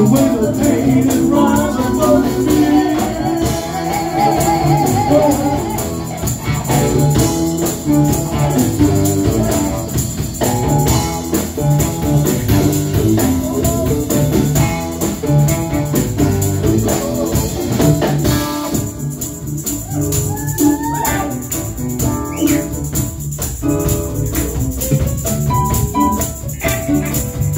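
Live blues band playing with drums, electric bass, electric guitars and keyboard, with singing over it. The sound grows sparser about two-thirds of the way through.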